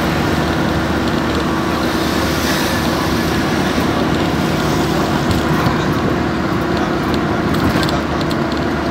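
Steady road noise heard from inside a moving vehicle at highway speed: engine and tyre noise with a constant low hum.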